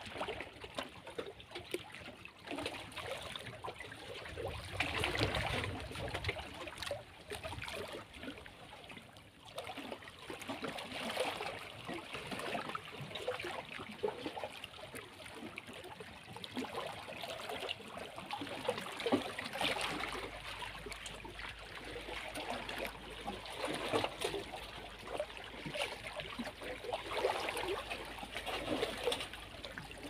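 Small waves of a calm sea lapping and splashing against shoreline rocks, swelling every few seconds.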